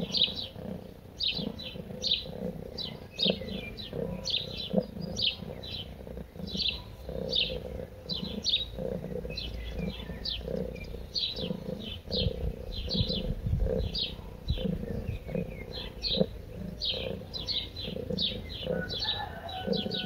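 Small birds chirping continuously, several short chirps a second, with a lower call repeating underneath.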